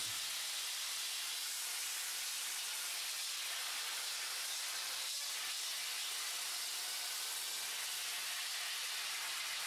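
Steady hiss of a hammer drill spinning a 50-grit diamond sanding pad over wet concrete, water-lubricated wet sanding of a poured concrete countertop.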